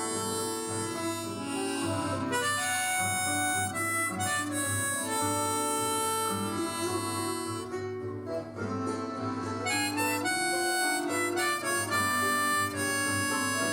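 Diatonic harmonica in C playing a melody in G, cross harp (second position), in held notes that change about every second over a steady accompaniment.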